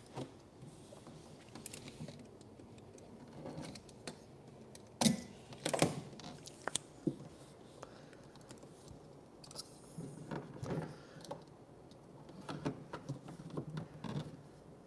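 Scattered small taps, clicks and rubbing as hands press and smooth vinyl wrap onto a mini fridge, with a couple of louder knocks about five to six seconds in.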